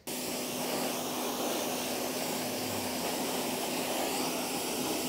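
Water spray jet hissing steadily against a dirt bike's engine cases and frame. It cuts in suddenly at the start, with a steady low hum underneath.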